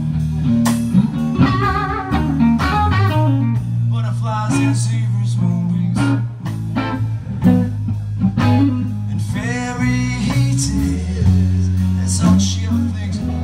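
A live blues-rock trio playing: electric guitar with bending lead lines over bass guitar and drums.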